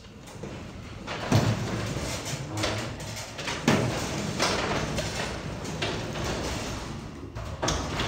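Sectional garage door, disconnected from its opener, moving by hand along high-lift tracks: a steady rumble of rollers in the steel tracks, with a few knocks along the way.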